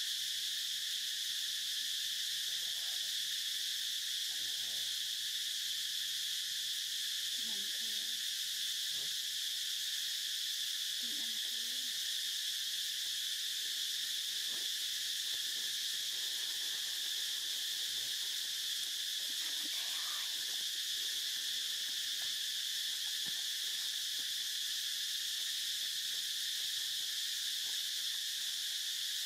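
Steady chorus of insects, a high, even buzzing that does not change. A few faint, brief lower calls come through it now and then.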